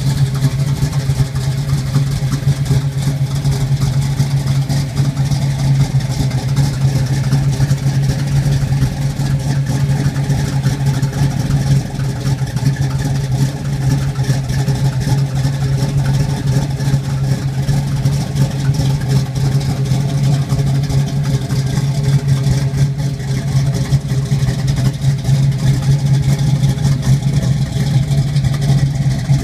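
A 1971 Chevrolet Camaro SS's V8 engine idling steadily, with no revving.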